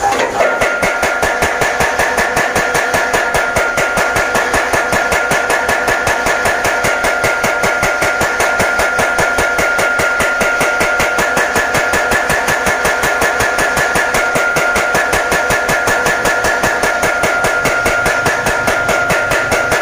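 Blacksmith's flywheel-driven mechanical power hammer pounding hot iron held in tongs, in rapid, even blows several times a second, with a steady high ringing tone over the beat.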